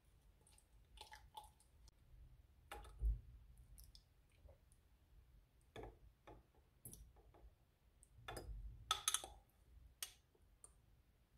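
A metal spoon clinking and scraping against glass as mashed fruit is spooned from a glass cup into a glass bottle: scattered light clicks and taps, the loudest about three seconds in and a cluster around nine seconds.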